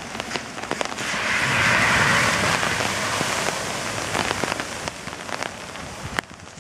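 Heavy rain falling on lawns and standing floodwater, with many sharp drop ticks close by. The rain swells louder from about one to three seconds in, then eases.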